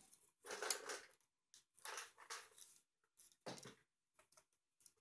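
Soft rustling and scraping of small 3D puzzle pieces being handled and pushed together by hand, in a few short bursts with small clicks between them.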